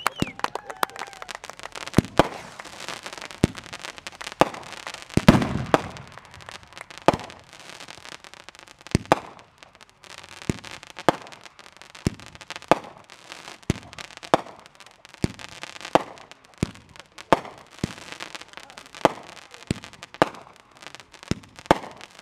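Aerial fireworks going off in a series of sharp bangs, roughly one or two a second, with a louder, longer burst about five seconds in.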